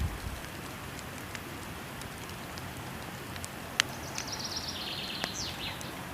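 Steady rush of a waterfall with a few sharp pops from a crackling wood fire. About four seconds in, a bird sings a short trill of rapid high notes that step down in pitch.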